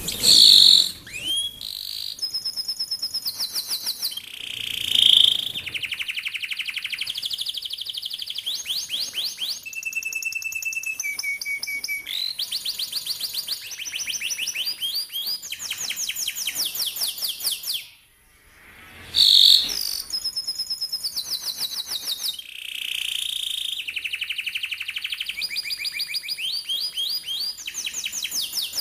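Domestic canary singing a long song of rapid trilled rolls, each run of fast repeated notes held a second or two before switching to a new pitch, with a brief pause about two-thirds of the way through.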